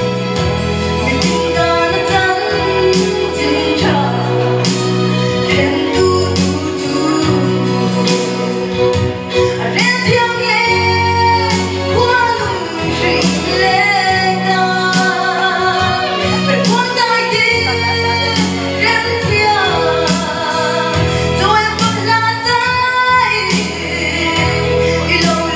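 A woman singing a melody into a microphone over musical accompaniment with steady bass notes and a regular beat.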